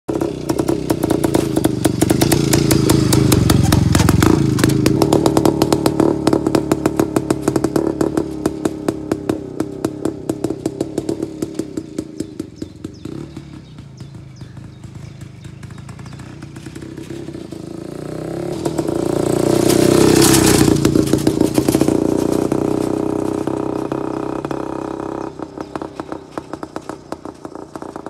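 DKW NZ 350-1 motorcycle's single-cylinder two-stroke engine riding past on a dirt track, its exhaust beats plainly separate. It swells loudest twice, around four seconds in and again around twenty seconds, fading between the passes and as it rides away near the end.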